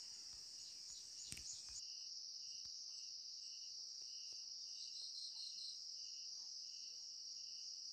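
Faint insects chirping: a steady high-pitched buzz with a softer chirp pulsing two or three times a second.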